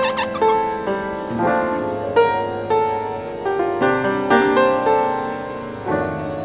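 Background piano music: a melody of single struck notes, each ringing and fading.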